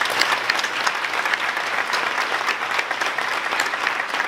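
Audience applauding: many people clapping at once.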